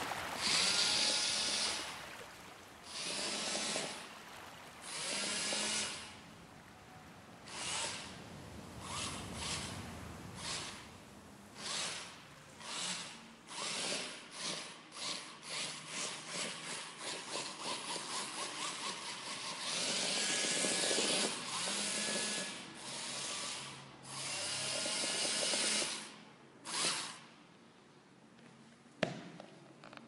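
Twin small plastic-geared DC motors of a robot car whirring in stop-start bursts as it drives and turns. Midway comes a run of quick, short pulses, then a few longer runs.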